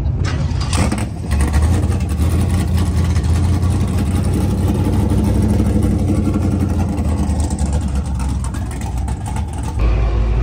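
A car engine idling with a steady, deep rumble. Near the end it gives way to a lower, even engine drone heard from inside a car's cabin.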